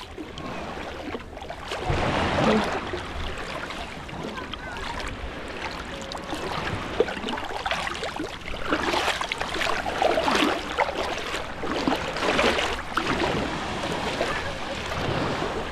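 Shallow sea water lapping and splashing at the shore, in irregular louder surges a few seconds apart.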